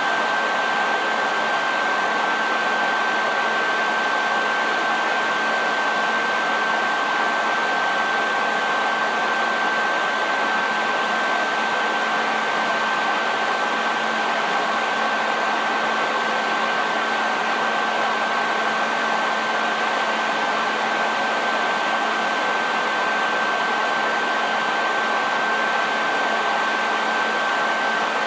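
Hair dryer running steadily: an even rush of blown air with a constant high whine from its motor and a low hum underneath.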